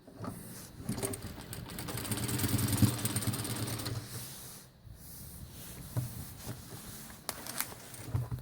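Jack JK 9100-BH industrial lockstitch sewing machine stitching in one rapid run that builds up speed, then stops about four and a half seconds in. Quieter handling sounds with a few sharp clicks follow.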